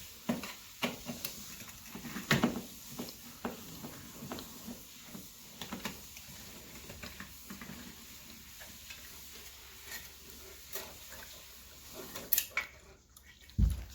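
Scattered small clicks, taps and scrapes of hands and a tool handling a doorbell chime unit and its parts, with a heavier knock near the end.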